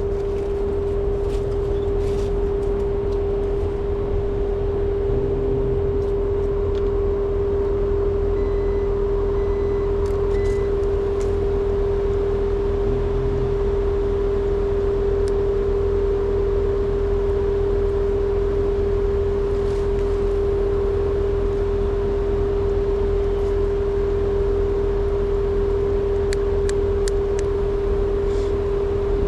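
A 20-year-old Trane two-stage condensing unit running steadily, its compressor and condenser fan giving a strong, even hum over a low rumble.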